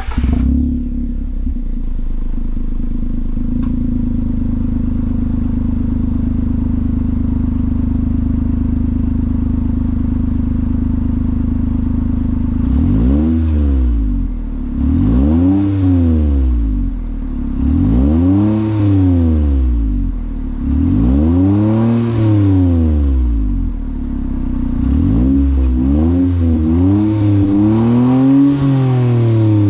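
Engine exhaust through a Yoshimura Slip-On Oval Cyclone slip-on muffler. The engine idles steadily for about twelve seconds, then is revved several times, each rev rising and falling in pitch over about two seconds.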